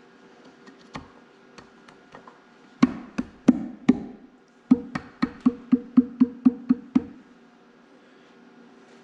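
Metal clunks as a steel output sprocket is worked down onto its splined shaft on the cast transmission housing of an Oliver 1855's over/under powershift. After a few light clicks come four sharp knocks, then a quick even run of about ten knocks at roughly four a second, each with a short metallic ring.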